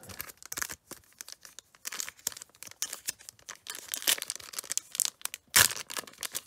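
Wrapper of a Panini Prizm football card pack being torn open by hand, crinkling and crackling, with one sharp rip about five and a half seconds in.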